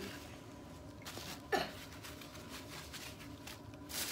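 Soft rustling of tissue paper and packing material as things are lifted out of a cardboard box, with one short sharp tap about a second and a half in. Louder crinkling of the packing, likely the bubble wrap, starts near the end.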